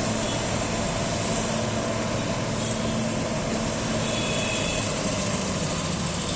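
Heavy engine of road-construction machinery running steadily with a constant low hum.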